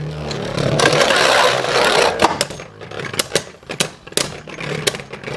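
Beyblade Burst spinning tops in a plastic stadium: a launched top whirs and rattles across the stadium floor for about two seconds, then clicks repeatedly against the standing Wizard Fafnir as it rubs against it and passes its spin on.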